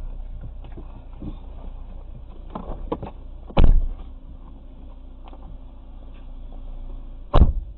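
Car door being opened with a few clicks and slammed shut, a heavy thump about three and a half seconds in, then a second heavy thump near the end, over the low steady hum of the stopped car.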